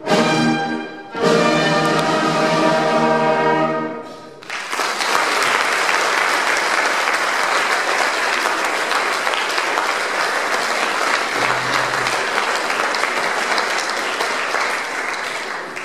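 A band of saxophones, brass and electric guitar plays a short chord, then a long held final chord that is cut off about four seconds in. Audience applause follows at once and carries on steadily.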